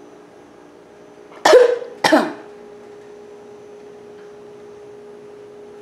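A person coughing twice, two sharp coughs about half a second apart, around a second and a half in.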